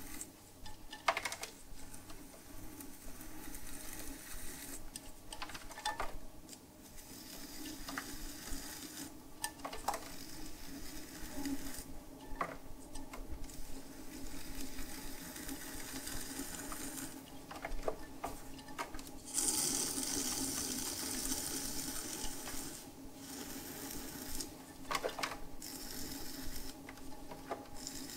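Loop trimming tool scraping leather-hard clay from the base of a cup turning on a pottery wheel: a rasping scrape that comes and goes in passes, loudest about twenty seconds in, with a few small clicks. Under it runs the steady hum of the wheel's motor.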